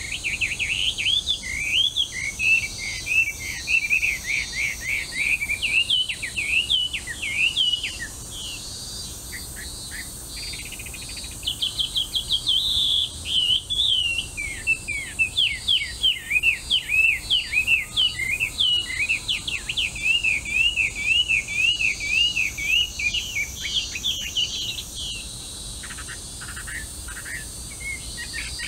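Melodious laughingthrush (hwamei) singing: long runs of loud, rapid, varied whistled phrases, with a pause of about three seconds after the first run. The song stops a few seconds before the end. A faint steady high insect buzz carries on underneath.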